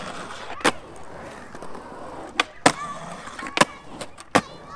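Skateboard wheels rolling on concrete, broken by several sharp clacks of the board. In the second half a thin, higher-pitched whine runs under the rolling, typical of titanium trucks grinding a metal ledge edge.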